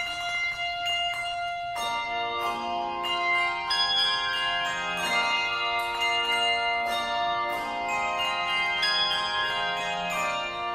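Tuned bells playing a slow melody: a note struck every half second to a second, each ringing on and overlapping the next.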